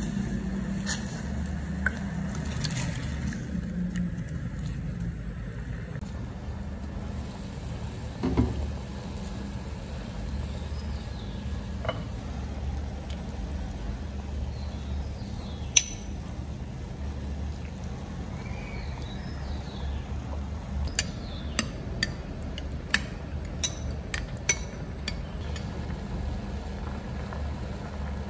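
Cooking sounds: a steady low hum with scattered sharp clinks of a metal ladle against a clay pot and bowls, coming in a quick run of clinks about three quarters of the way through.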